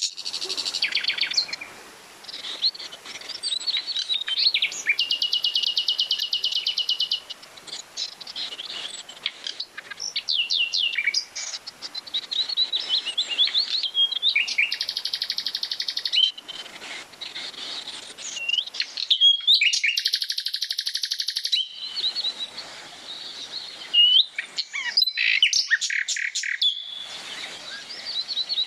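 Several songbirds singing in woodland: a steady run of quick chirps and short whistled sweeps, broken three times by a rapid buzzy trill lasting about two seconds each.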